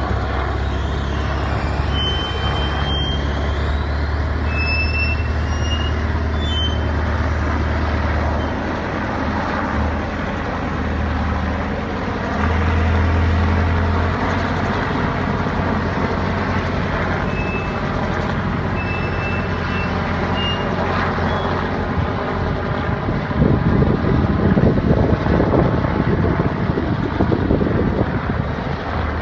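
Two vintage helicopters, a Westland Wessex and a Westland Whirlwind, flying past together overhead. Their rotors and engines make a steady low drone that swells for a couple of seconds around the middle.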